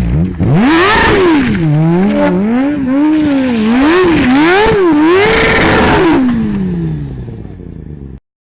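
An engine revving hard up and down about six times in quick succession, then the revs falling away. The sound cuts off abruptly near the end.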